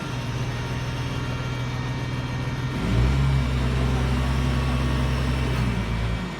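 Large engine running steadily. About three seconds in its pitch steps up and it gets louder, as under added load, then it drops back near the end.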